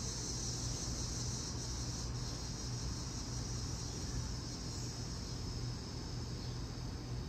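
Steady high-pitched insect chorus over a low, constant hum.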